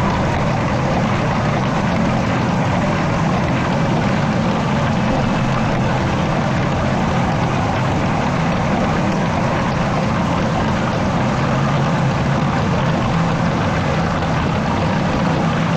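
Steady, loud din of a pachinko parlor: many machines running at once with the constant rush of steel balls.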